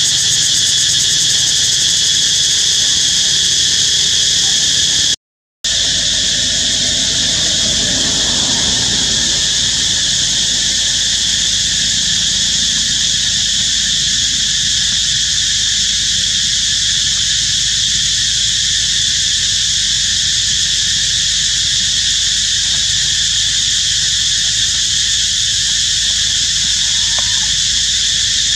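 Loud, steady insect chorus, a continuous high-pitched drone in several bands that cuts out briefly about five seconds in.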